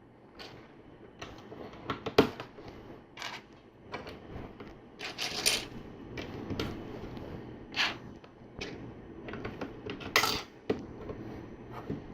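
Plastic LEGO pieces clicking and clattering as bricks are handled and pressed together, in irregular sharp clicks with a few short rattles and one loud snap about two seconds in.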